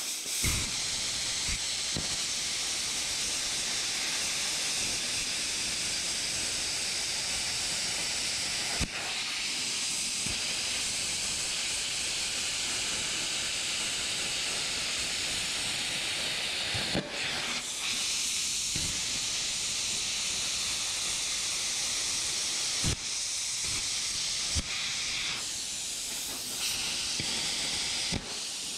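CUT50 plasma cutter torch cutting 18-gauge steel sheet: a steady hiss of the arc and its compressed air, with a few short breaks and clicks along the way.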